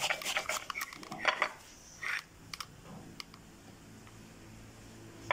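A raw onion being grated on a metal box grater over a plate: a run of short scrapes and clicks, thinning out after about three seconds.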